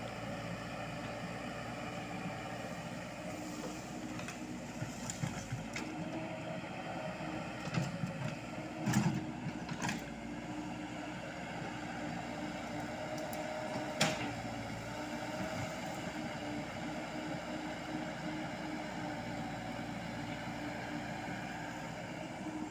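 Komatsu PC78US mini excavator's diesel engine running steadily under hydraulic load while digging. A few sharp knocks come from the bucket and digging at about eight to ten seconds in, and a louder one at about fourteen seconds.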